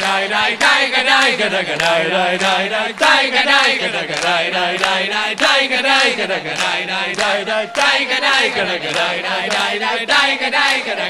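Choir and audience chanting a wordless 'daika daika da da da' tune over and over, with rhythmic hand clapping.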